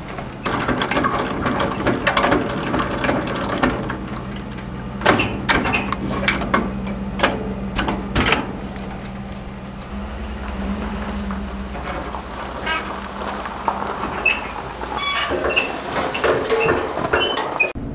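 Metal clicks, clanks and rattles of boat-trailer hardware being worked: a hand winch cranked and the trailer tongue hooked up to a pickup. A steady low hum runs underneath, and a cluster of sharp knocks comes about five to eight seconds in.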